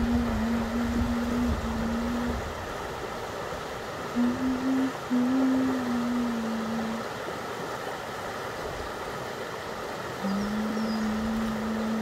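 Mountain stream rushing over boulders in small cascades, a steady watery rush. A low steady hum, shifting slightly in pitch, rises over the water three times: in the first two seconds, from about four to seven seconds in, and from about ten seconds in.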